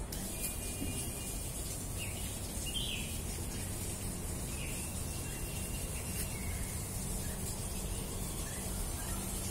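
Outdoor ambience: a few short, high bird chirps over a steady high hiss and a low rumble.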